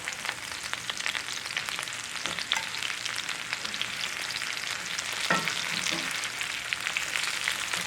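Sliced potatoes frying in a cast iron skillet: a steady sizzle full of fine crackles and pops, with one short louder sound about five seconds in.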